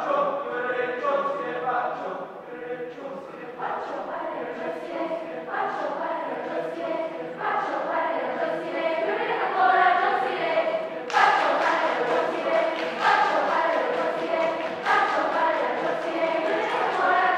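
Mixed choir singing a cappella, entering together all at once after a pause. From about eleven seconds in, sharp percussive hits cut through the singing again and again.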